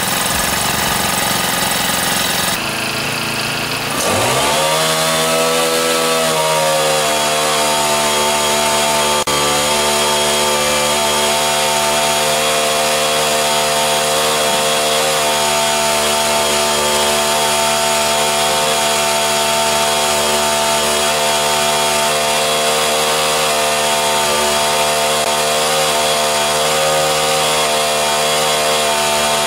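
Small petrol engine of a portable rail drilling machine revving up about four seconds in, then running steadily at high speed while its cutter drills through the steel rail.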